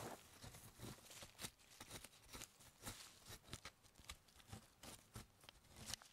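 Faint, irregular scratchy crunches of a circle hoe's metal ring blade scraping and cutting through dry, crumbly soil.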